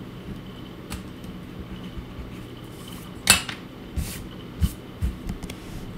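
A hand rubbing and sweeping across a sketchbook page, giving a few short sharp rustles and knocks, the loudest a little past the middle. A steady low hum runs underneath.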